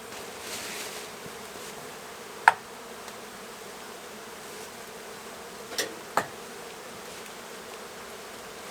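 A large honey bee colony buzzing steadily, disturbed by an open cutout. A sharp knock about two and a half seconds in, and two lighter knocks near six seconds.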